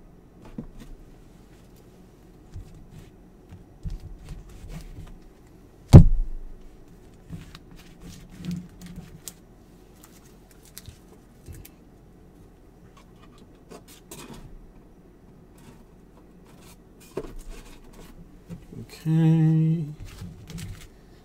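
Trading cards and packaging being handled and tidied on a table: scattered light clicks and rustles, with one sharp knock about six seconds in.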